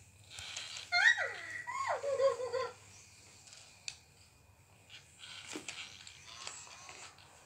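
FurReal Friends animatronic toy monkey's speaker sounding its monkey call, set off by the toy being moved: a squeal that rises then falls, followed by a wavering hoot. A few faint clicks follow.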